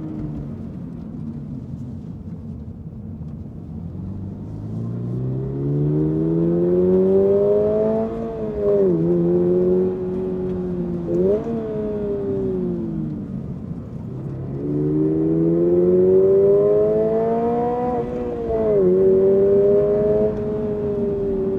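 Toyota GR86's 2.4-litre flat-four boxer engine accelerating, its pitch climbing steadily and dropping sharply at two upshifts, with a short rev in between and a steadier, easing stretch near the end.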